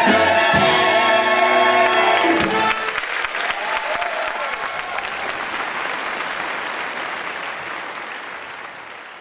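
Orchestra playing the final chord of a musical number, cut off about two and a half seconds in, then an audience applauding, fading away.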